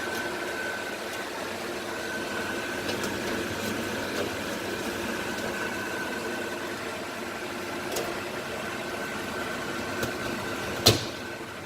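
Steady mechanical hum with a thin high whine. About three-quarters of the way through comes a single sharp click, the rangehood's metal grease filter snapping into place.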